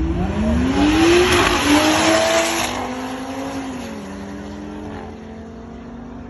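Car engine revving hard under acceleration, its note climbing twice over the first three seconds under a loud rush of exhaust and tyre noise, then dropping and settling lower and steadier.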